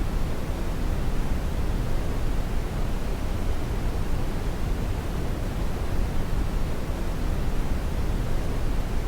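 Steady synthetic noise, an even rushing hiss weighted toward the low end and unchanging throughout: a sleep-aid 'white noise' track for babies.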